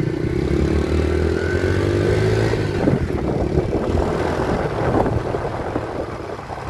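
Vehicle engine running under way, its pitch rising slowly over the first few seconds as it accelerates, over steady road and wind noise.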